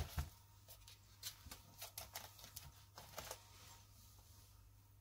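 Thick card pages of a handmade scrapbook album being turned and handled: a knock at the start, then a run of short, soft papery clicks and rustles that stop about three and a half seconds in.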